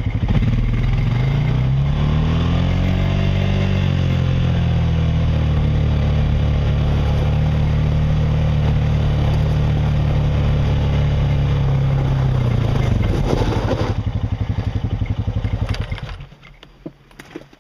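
Honda Rancher ATV's single-cylinder four-stroke engine under way, revving up about two seconds in and holding a steady pitch while riding. The revs fall away about thirteen seconds in, and the engine sound stops near the end.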